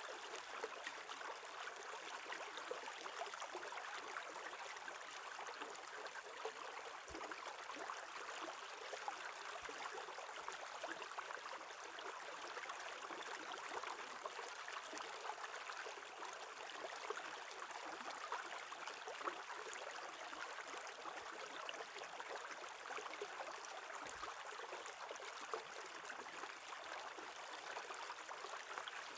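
Shallow stream running over stones and under the edge of shore ice: a steady rush of water with many small splashes and bubble pops.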